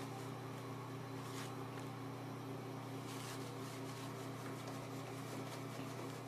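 A steady hum with several pitched tones runs throughout. Over it, toilet paper rustles faintly a couple of times as a cat paws it off the roll.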